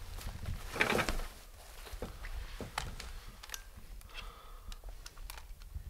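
Rustling and scattered small clicks of a camcorder being picked up and handled, with a louder rustle about a second in and a short faint tone a little after four seconds.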